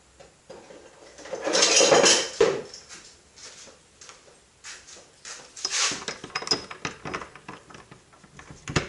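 Metal parts and tools clattering and clinking as they are rummaged through and handled, with a loud rattling burst about a second and a half in, another near six seconds, then a run of short clicks and knocks.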